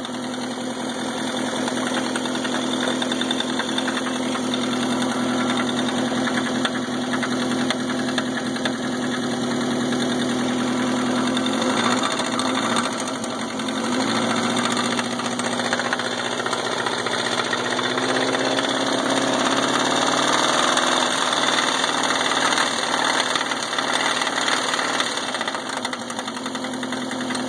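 Subaru EA81 flat-four engine idling with a horrid noise over it. The engine otherwise runs smoothly, with good oil pressure on the gauge. Its speed rises gently about halfway through and then settles back.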